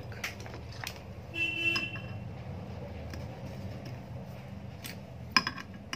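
Needle-nose pliers clicking against the metal terminal lugs of an electric iron's thermostat as a wire is worked loose, with a few sharp clicks, the loudest near the end. A brief high toot about a second and a half in, over a steady low hum.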